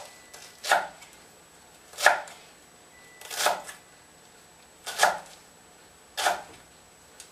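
Chef's knife slicing a tightly rolled bunch of cilantro on a wooden cutting board: five separate cuts, about one every second and a half, each a short sharp knock of the blade on the board.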